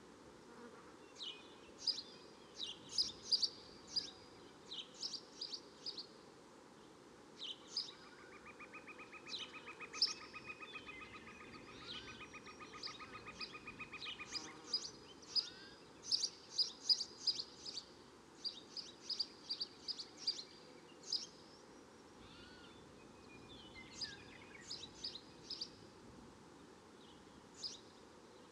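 Jungle nature ambience: many short, high bird chirps repeating throughout, over a steady faint hiss, with a rapid pulsing trill from about 8 to 14 seconds in.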